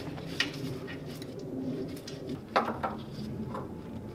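A bird cooing steadily in the background, with a few light clicks and knocks of hand tools against the engine.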